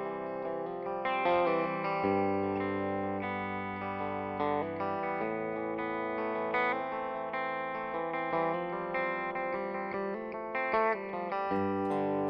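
Background music: an instrumental guitar track with sustained notes changing every second or so.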